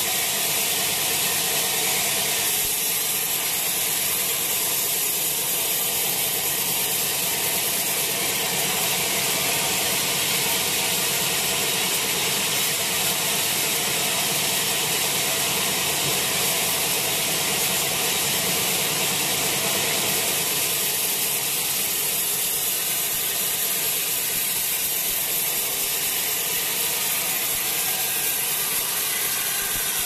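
Sawmill band saw running steadily as it rips lengthwise through a wet teak log. It makes a continuous, even hiss that does not change.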